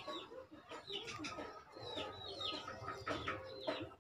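Chickens clucking, with repeated high, falling chirps.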